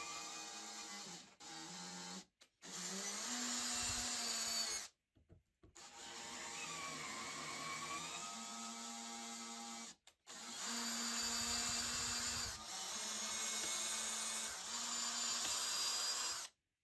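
Angle grinder motor running and working material, its whine sagging in pitch under load and recovering, in several short clips cut off abruptly one after another.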